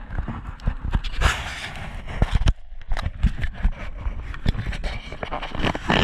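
Handling noise on a GoPro Hero7 as it is moved and turned: irregular knocks, clicks and scraping against the camera body.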